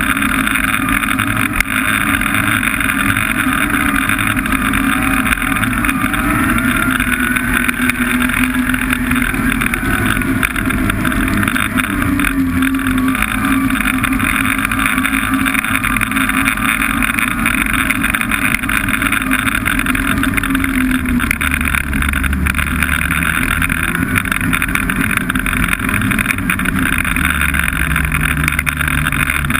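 Snowmobile engine running steadily under way, its note wavering a little; about two-thirds of the way through the pitch drops as it eases off.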